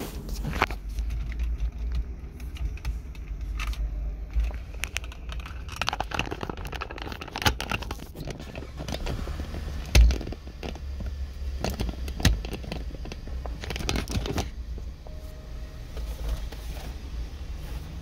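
Packaging of a Nature Valley blueberry soft-baked muffin bar being handled, with irregular crinkling and tearing as it is opened. A steady low rumble runs underneath, and there is one sharp thump about ten seconds in.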